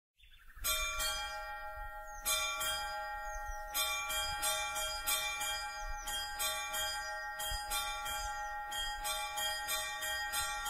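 Orthodox church bells ringing in a fast peal, struck about twice a second, each strike ringing on under the next.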